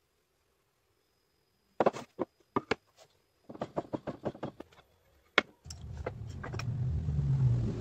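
A run of wooden knocks and clatter as a board and a wooden fence are set down on the wooden saw table. About two thirds of the way in, the homemade table saw's motor starts and runs up to a steady low hum.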